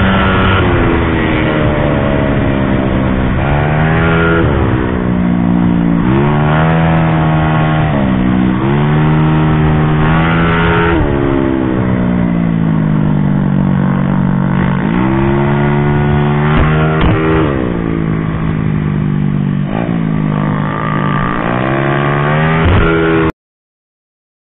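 Honda Beat scooter's small single-cylinder engine at racing speed, its pitch climbing and dropping again and again as the throttle is opened and closed through the corners. The sound cuts out abruptly near the end.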